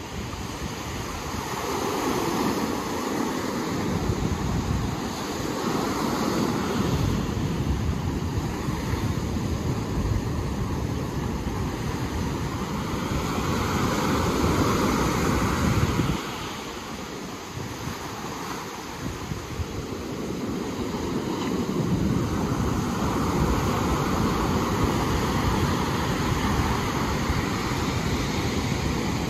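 Ocean surf washing ashore: a steady noise that swells with each incoming wave and fades, every several seconds. Wind rumbles unevenly on the microphone.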